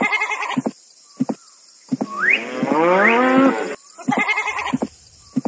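Cattle mooing: short calls at the start and again near the end, with one long, loud moo falling in pitch about two seconds in.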